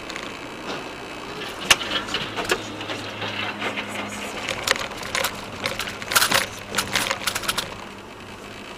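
Car jolting over broken, potholed asphalt: a run of sharp, irregular knocks and clatters from the suspension and body, heard from inside the car over a steady engine and road hum.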